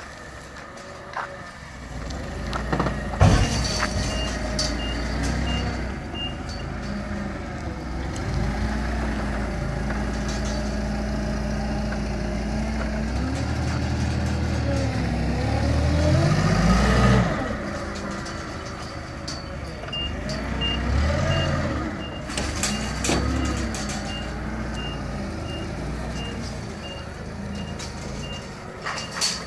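Propane forklift engine running and revving, rising in pitch to a peak about two-thirds of the way through and then easing off. Its reversing alarm beeps steadily for a few seconds early on and again through the last third. A sharp knock comes about three seconds in.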